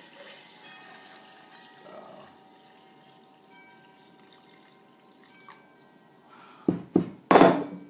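Faint dripping of liquid, the strained green juice just poured into the blender, then two loud thumps near the end.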